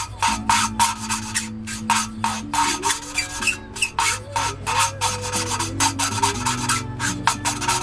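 Engine valve being hand-lapped into its seat in a cylinder head: the lapping stick is turned back and forth, and the valve face rubs against the seat in short scratchy strokes, about three a second.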